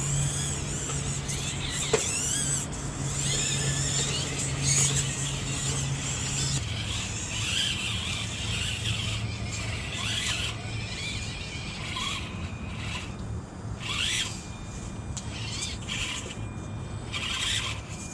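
Micro-scale RC crawlers' small electric motors and gears whining in short bursts, the pitch rising and falling with the throttle, over a steady low hum, with one sharp click about two seconds in.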